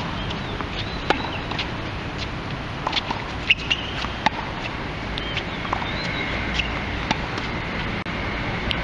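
Tennis balls popping off racket strings and bouncing on a hard court: irregular sharp hits a second or so apart, the loudest about three and a half seconds in, over a steady low background noise.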